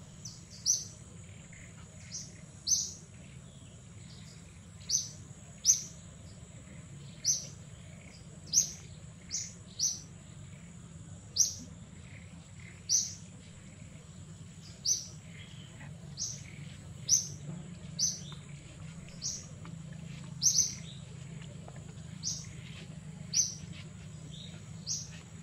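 A small bird chirping over and over, short sharp high chirps at uneven spacing of about one a second, over a thin steady high-pitched whine.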